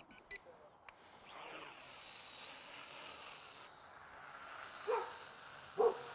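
High, faint whine of a small remote-controlled aircraft's electric motors, gliding in pitch as they spin up a little over a second in, then holding steady. A dog gives two short barks near the end.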